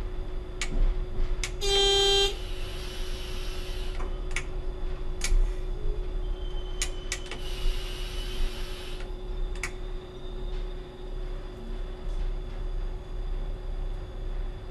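Inside the cab of a Y-train diesel railcar: a steady engine hum and rumble, with one short pitched tone about two seconds in. Two stretches of hissing follow, with scattered sharp clicks.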